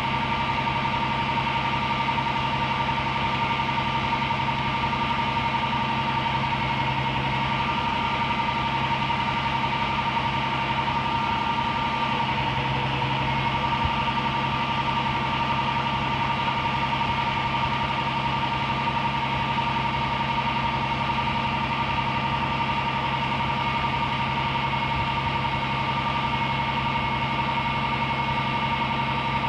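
Aerial ladder fire truck's engine running steadily with the ladder raised, with a steady high whine over it.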